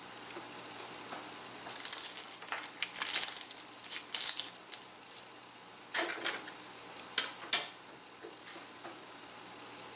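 Light clicks, taps and crisp rustling as thin wood sticks, small gusset pieces and a stick frame are handled and shifted on a paper sheet over a table. The sounds come in irregular clusters, busiest from about two to five seconds in, with a few sharp ticks again around six and seven seconds.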